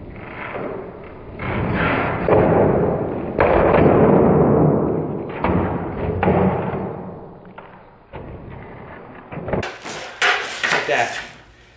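Skateboard wheels rolling on a concrete floor, with a sharp clack of the tail popping a few seconds in during a varial kickflip attempt. A cluster of clacks and knocks near the end as the board comes down and hits the floor.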